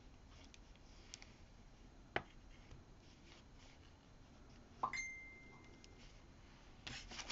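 Quiet room with small handling sounds of a pen-style tool on a paper print: a sharp click about two seconds in, and a knock about five seconds in followed by a brief high ring.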